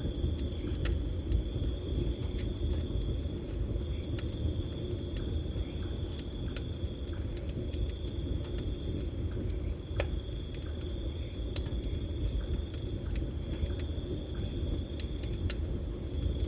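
Campfire crackling, with many scattered sharp pops and one louder pop about ten seconds in, over a low rumble of the fire. Crickets chirp steadily throughout at two high pitches.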